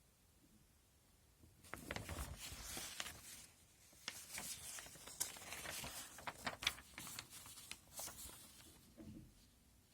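Model kit packaging being handled and torn open: irregular crinkling and rustling with sharp little clicks, starting about two seconds in.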